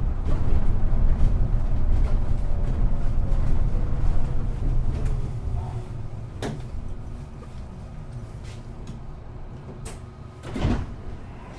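City bus interior: the engine and drivetrain rumble with a falling whine as the bus slows, then settle to a quieter steady idle. A couple of clicks and a short, louder door-like burst come near the end.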